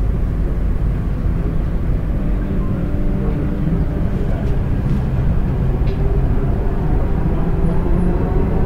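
Hyderabad Metro train running, heard from inside the carriage: a steady low rumble with a faint hum.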